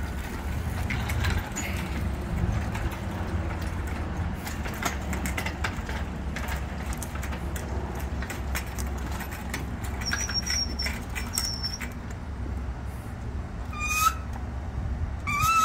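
A loaded shop engine hoist being rolled across asphalt, with the transfer case hanging from its chain. Its casters give a steady low rumble and the chain and hook make scattered light clinks. A few short squeaks come near the end.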